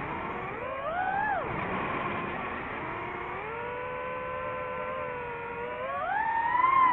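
DJI FPV drone's motors and propellers whining. The pitch rises and falls with the throttle: up about a second in, then down, steady through the middle, and climbing again near the end.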